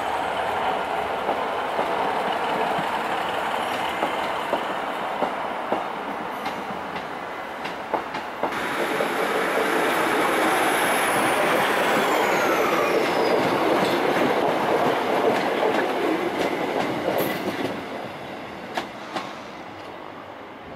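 A GWR High Speed Train runs over curved pointwork, its wheels clattering over rail joints. Then louder train noise with a high squeal falling in pitch fades away, and a few sharp clicks near the end.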